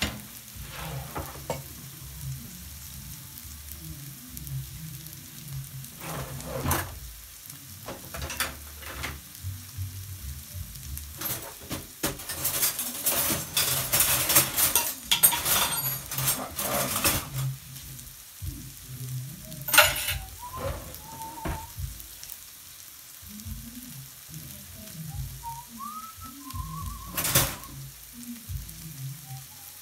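Meat patties frying in a little sunflower oil in a stainless steel pan, the fat sizzling steadily. The crackle grows denser and louder through the middle stretch. Scattered sharp clicks and a few short whistle-like chirps come in the second half.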